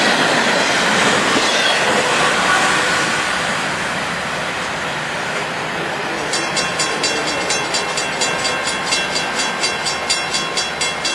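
Freight train cars rolling past on the rails: a steady wheel-on-rail rumble. From about six seconds in, as the last car goes by, a regular clicking at about three clicks a second begins.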